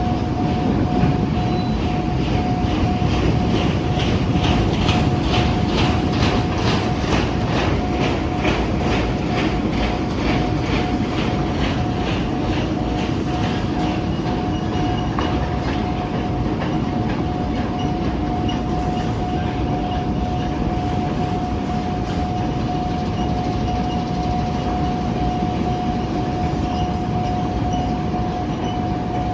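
A narrow-gauge sugarcane train of empty wagons rolls past with a steady rumble and a fast, even clatter of wheels over rail joints; the clatter fades after the middle. A steady single-pitched tone sounds throughout, fitting the level crossing's warning signal.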